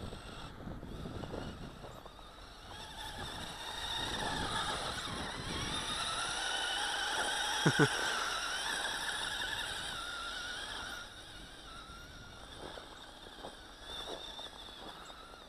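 Small electric drive motor of a toy RC snowmobile (Polaris Rush Pro-Ride model) whining as it churns through deep snow, the pitch wavering up and down and loudest in the middle, with a sharp double knock about halfway through. The machine is short of power and digs itself into the thicker snow.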